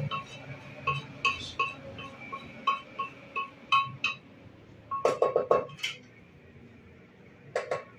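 A metal spoon clinking against the side of a steel cooking pot while stirring. The clinks ring at the same pitch each time, about two a second at first, then a quicker flurry about five seconds in, and one more near the end.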